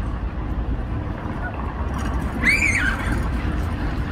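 Steady low rumble of city street traffic, with one brief high-pitched squeal that rises and falls about two and a half seconds in.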